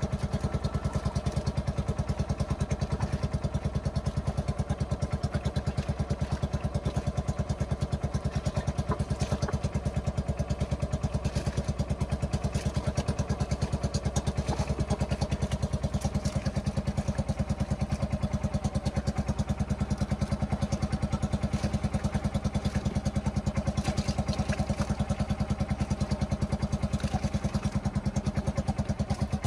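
A small engine running at a steady speed, an even, rapid pulse that keeps the same pace with no revving.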